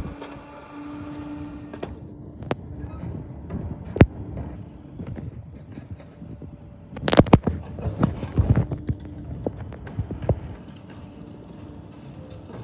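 Rear-loading garbage truck running with a steady hum while its crew empties trash cans into the hopper by hand: sharp bangs and knocks as the cans hit the loading edge, a couple singly and then a loud cluster about seven seconds in.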